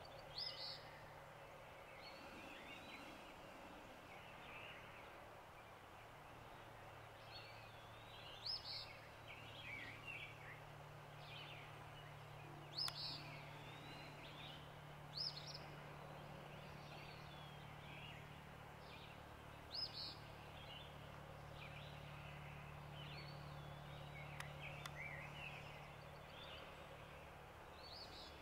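Faint outdoor birdsong: background birds calling and chirping on and off, with several short, sharp chirps standing out louder, over a steady low hum.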